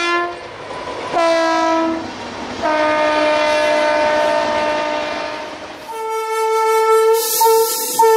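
Train horn sounding in separate blasts: a short blast about a second in, then a long blast of about three seconds. Near the end a higher horn tone sounds, joined by a hiss.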